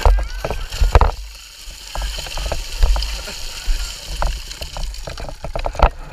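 Wind buffeting a helmet-mounted camera's microphone as a deep, gusting rumble, with scattered crunching footsteps and knocks on loose frozen gravel. No motorbike engine is running.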